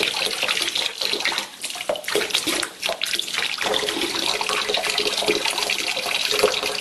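A steady stream of water pouring from a glass jar into a plastic tub.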